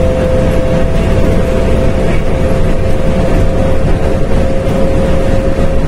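Inside the cab of an old Scania truck cruising along a road: a loud, steady engine drone and road rumble, with a constant whine over it.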